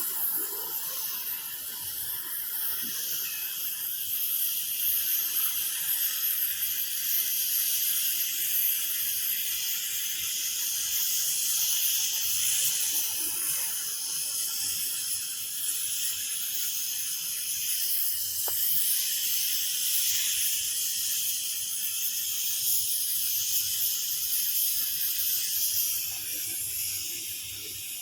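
Gas cutting torch hissing steadily as it cuts thick steel plate, easing off near the end.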